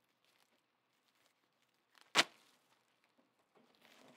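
Handling of a roll of plastic bags: a single sharp snap about two seconds in, then faint crinkling of plastic building near the end.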